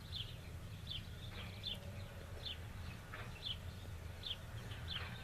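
A bird calling with short, high, downward chirps, about one a second, over the low steady rumble of the tractor and baler working the field.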